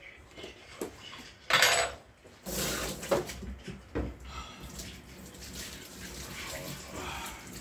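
Dishes and cutlery knocking together in short, separate clinks and clatters, with a couple of longer noisy rushes about one and a half and two and a half seconds in.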